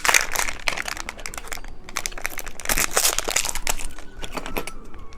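Plastic candy wrapper crinkling and crackling as it is handled and opened, in dense irregular bursts.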